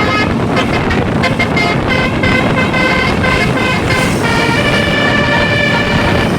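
Bus's multi-trumpet telolet basuri musical air horn playing a tune over road and engine noise. It plays quick short notes for about two seconds, then longer held chords.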